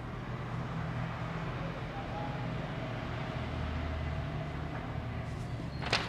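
Steady low background hum and hiss with no speech. A few sharp clicks near the end, from paper being handled.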